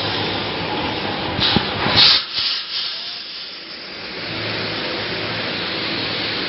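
A high-speed wire mesh welding machine running, a steady noisy hiss with a cluster of sharp clacks about two seconds in. The noise dips briefly after the clacks, then goes on.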